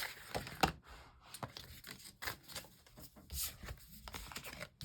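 Tarot cards being shuffled and handled on a table: irregular light flicks, slaps and short sliding rustles of the cards.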